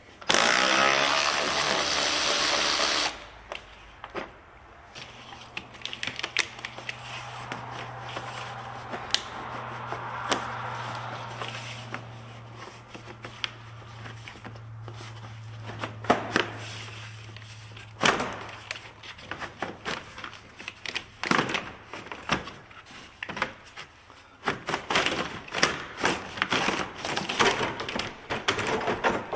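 A Hercules cordless ratchet runs for about two and a half seconds near the start, driving out a fan shroud bolt; this is the loudest sound. Then come the knocks, clunks and rattles of a plastic fan shroud and radiator hoses being handled and lifted out, over a low steady hum in the middle stretch.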